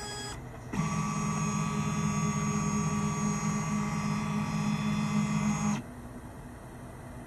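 Stepper motor of a lab robot's lead-screw gantry driving the carriage along: a steady electric whine over a low hum that starts about a second in and cuts off suddenly near the end. A briefer, quieter whine at the very start stops after a fraction of a second.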